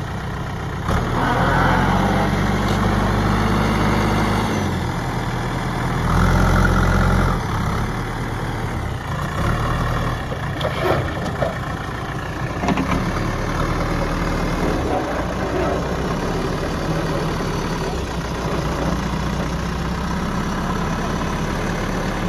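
Diesel engine of a JCB 3DX backhoe loader working. It is raised to higher revs twice, from about a second in for three seconds and again around six seconds, then runs more steadily with a few short clanks.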